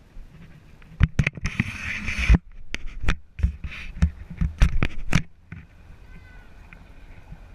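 A quick irregular series of knocks and clatters, with two short scraping or rustling bursts among them, stopping about five seconds in; after that a faint steady hum.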